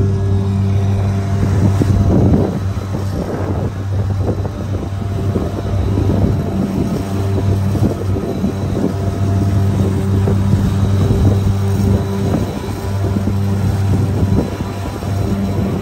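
Pontoon boat's outboard motor running steadily with a constant low hum, with wind noise on the microphone.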